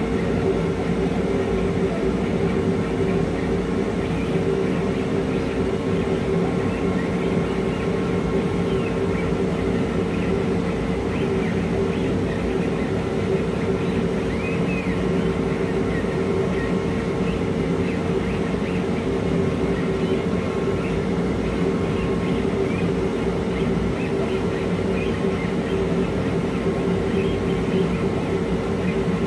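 Glowforge Pro laser cutter running as it cuts cardboard: a steady drone of its fans, with short faint whines from the motors moving the laser head.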